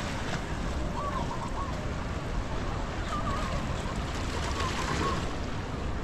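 Steady surf washing on the beach, mixed with wind rumbling on the microphone. Three short wavering whistle-like sounds come through faintly over it, about a second, three seconds and four and a half seconds in.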